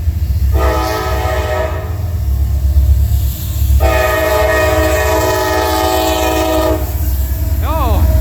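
Lead locomotive's multi-tone air horn on Norfolk Southern 1846 sounding a short blast about half a second in, then a long blast of about three seconds. Underneath is the steady low rumble of the train passing.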